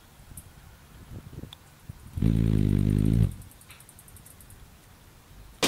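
A hummingbird's wings humming, a low steady buzz lasting about a second midway through, with a rapid high ticking alongside it.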